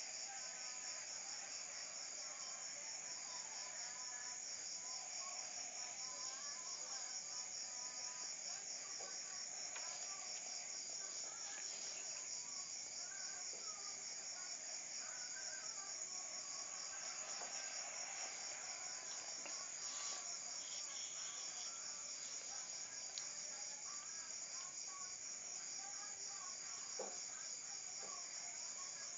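Insects chirping in a steady, high-pitched, rapidly pulsing trill, with a couple of faint clicks near the end.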